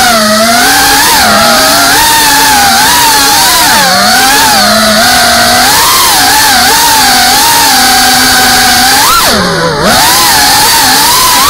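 FPV racing quadcopter's electric motors and propellers whining, heard through its onboard camera, the pitch rising and falling constantly with the throttle. A little after nine seconds the pitch drops steeply, then sweeps back up.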